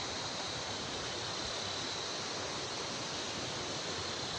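Steady rushing noise with a faint high-pitched band running through it and no distinct events.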